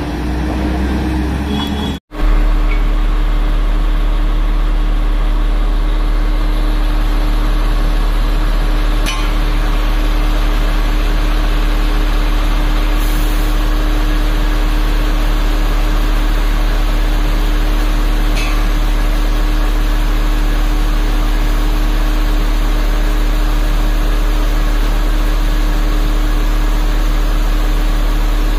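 Diesel engine of heavy construction machinery running at a steady speed, a constant loud drone with a steady hum. The sound drops out for a moment about two seconds in and then carries on unchanged.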